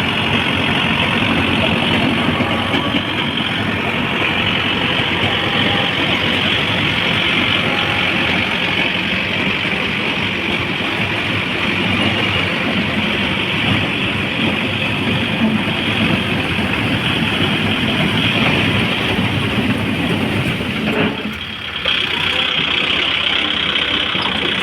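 Tractor engine running steadily, with a brief drop in level about 21 seconds in before it picks back up.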